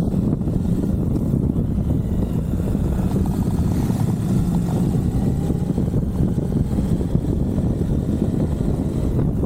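Suzuki V-Strom 1050XT's V-twin engine running steadily while riding, heard onboard as an even, low rumble.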